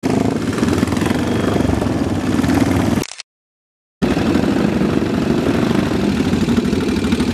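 Several custom chopper and bobber motorcycles running together as they ride in and pull up, engines at low revs and idling. The sound breaks off for about a second some three seconds in, then resumes.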